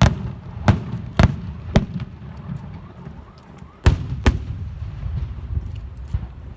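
Aerial fireworks going off: a series of loud, sharp bangs at uneven intervals, two of them close together about four seconds in, over a low rumble.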